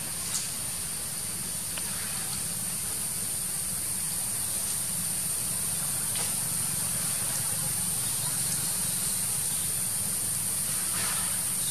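Steady outdoor ambience: a high, even insect drone over a low steady hum, with a few faint ticks.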